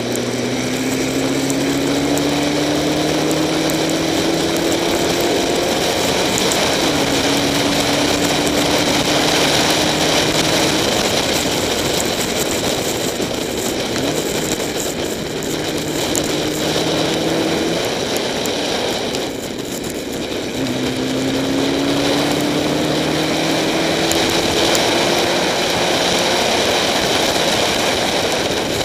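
Spec Racer Ford's four-cylinder engine under hard acceleration, its pitch climbing through each gear with upshifts in between and a brief lift about two-thirds of the way through. A steady hiss of wind and tyre spray from the wet track runs under it, heard from the camera on the car.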